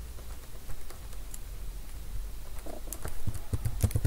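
Light clicks and taps of a computer mouse and keyboard, scattered and coming faster near the end, over a low steady hum.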